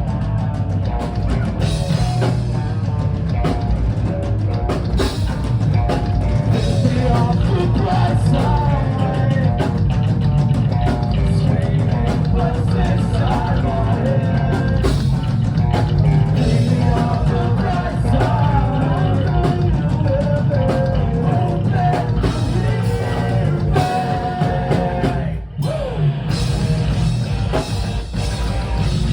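A rock band playing: drum kit and guitar, loud and steady, with one brief break for a beat near the end.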